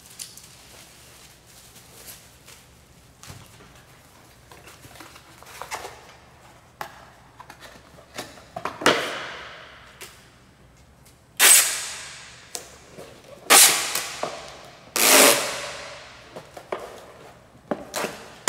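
Soft crinkling of plastic bubble wrap, then packing tape pulled off a handheld tape gun in about five loud rips, each fading out, as a cardboard shipping box is sealed.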